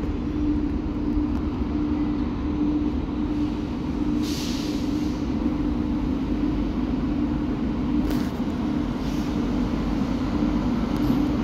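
WAG-9 electric locomotive drawing a freight train slowly towards the listener: a steady electric hum over a low rumble, with a few short hisses, the longest about four seconds in.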